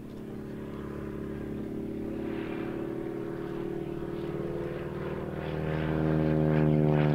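VL Viima II biplane's seven-cylinder Siemens-Halske Sh 14 radial engine and propeller droning in flight overhead, growing louder toward the end as its pitch slides slightly down.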